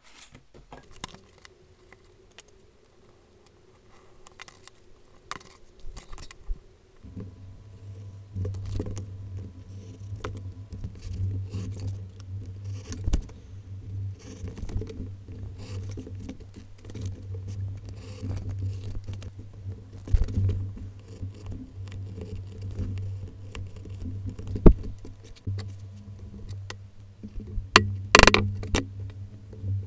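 A craft knife scratching and scraping through leather on a cutting mat, with small clicks and taps of tools, over a low steady hum from about seven seconds in. Near the end, a few sharp knocks: a mallet striking a leather hole punch.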